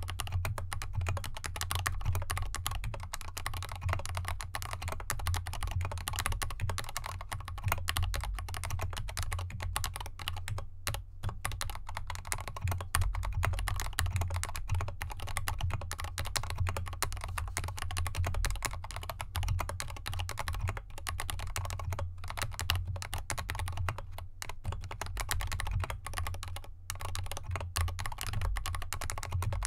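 Continuous fast typing on a GK64X mechanical keyboard with lubed Gateron Yellow linear switches, SA-profile keycaps and an aluminium case with dampening foam, set on a desk mat. Dense keystroke clacks, with a few brief pauses.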